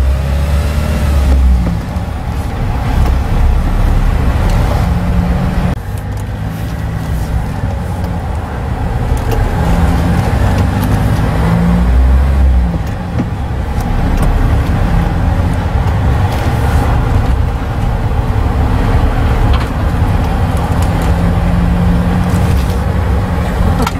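Hyundai Porter II light truck driving slowly along a narrow paved forest road: the diesel engine runs with tyre and road noise, its pitch rising and falling with the throttle. There are a few brief knocks along the way.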